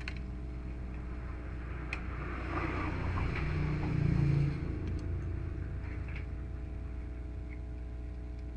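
Steady low hum with a few faint small clicks as the flex cable is worked loose from the printer's print head. A low rumble swells up and dies away a little after the middle.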